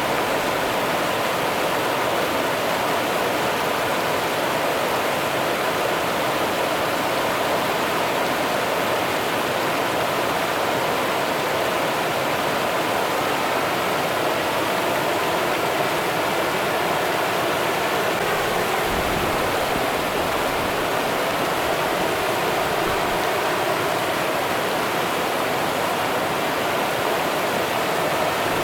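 Rio Grande river water flowing, a steady even rush of running water.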